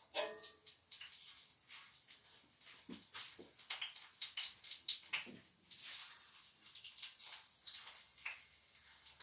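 Zucchini rounds frying in hot oil in a pan, the oil sizzling and spitting in irregular crackles and pops. A brief ringing clink just after the start.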